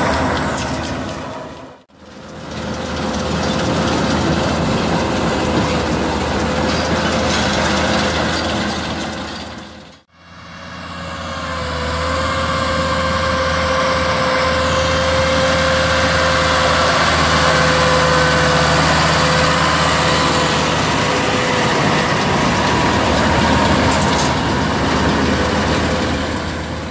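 Same Tiger 100's turbocharged five-cylinder diesel running steadily under load while driving a Feraboli Extreme 265 round baler baling straw, with a steady whine over the engine note. The sound drops out briefly about two seconds in and again about ten seconds in.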